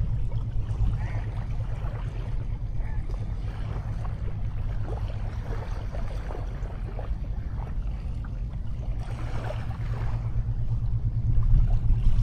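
Wind rumbling on the microphone over the wash of sea waves on the beach, getting louder near the end.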